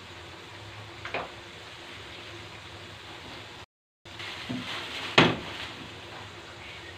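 Sauce simmering in a stainless steel wok, a steady bubbling hiss. There is a single click about a second in. A few seconds later the sound cuts out briefly, then comes a short cluster of knocks and clatter, like kitchen utensils or dishes being handled, the loudest about five seconds in.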